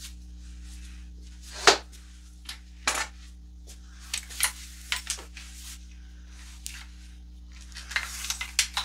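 Pump-action shotgun being taken down and handled: a sharp metallic clack about two seconds in, then scattered clicks and knocks, with a quick run of clicks near the end.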